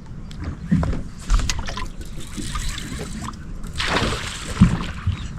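Water sloshing and splashing around a small fishing boat, with scattered light knocks and clicks and a louder splash about four seconds in.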